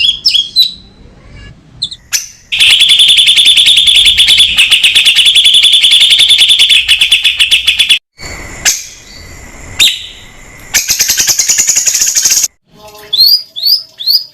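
Cucak cungkok songbird singing: a loud, very fast trill of repeated notes for about five seconds, then a few different rasping calls, and short sharp rising whistles near the end.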